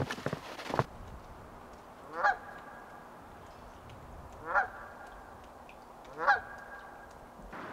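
Goose honking three times, about two seconds apart, each call short and rising in pitch. A few knocks sound in the first second.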